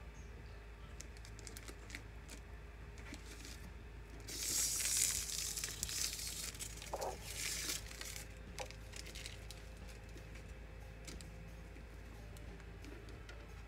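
Clear plastic bag crinkling and rustling as a label printer is pulled out of it. It is loudest from about four to five and a half seconds in, with another rustle about seven seconds in and scattered light crackles between.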